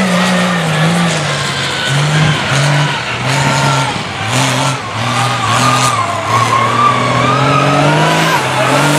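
Big-tired mud truck's engine revving hard, its pitch stepping up and down again and again with the throttle. A higher whine wavers through the second half.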